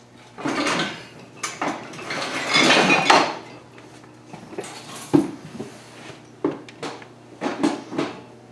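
Irregular metal clinks and clattering with rustling, a string of short knocks from tools or parts being handled and shifted, loudest about halfway through, over a faint steady low hum.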